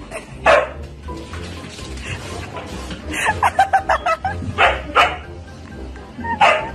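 A dog barking: sharp single barks, then a quick run of short barks in the middle, over background music.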